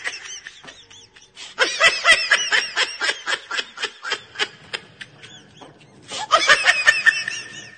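Laughter: a long run of quick repeated ha-ha bursts that fades out about four and a half seconds in, then a second burst of laughter starting about six seconds in.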